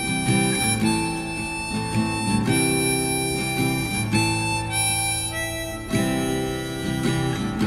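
Background music: a harmonica playing held melody notes over acoustic guitar.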